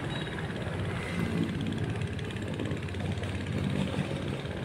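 A large engine running steadily, a continuous low rumble with no change in speed.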